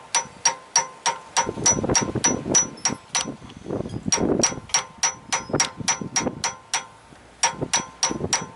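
Hammer gently tapping a steel socket extension about four times a second, each strike ringing with a metallic ping, with two short pauses. It is driving a pilot shaft bushing evenly into the back of a Ford 302 5.0-litre V8.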